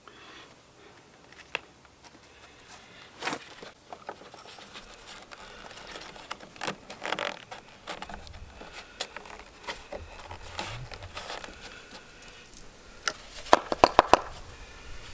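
Handling noises from changing the air filter on a Honda HRX217 mower's air cleaner: scattered rustles, scrapes and small plastic clicks, then a quick run of about five sharp clicks near the end.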